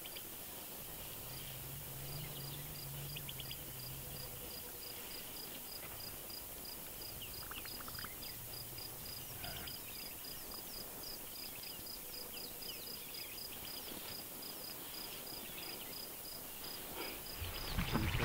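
Bushveld ambience: an insect chirping at about four high, even chirps a second, with scattered short bird calls.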